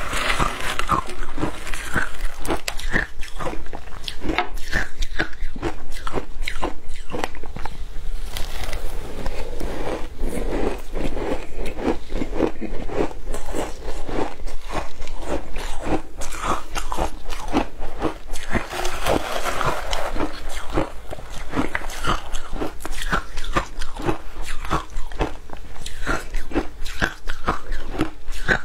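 Close-up crunching and chewing of mouthfuls of matcha-dusted shaved ice, a dense, irregular crackle of ice breaking between the teeth.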